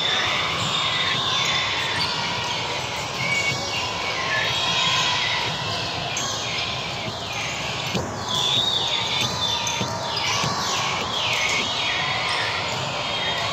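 Echoing sports-hall din from several volleyball courts: a steady wash of distant voices and play. A sharp knock about eight seconds in, like a ball being struck or bounced, and a run of short high squeaks over the next few seconds.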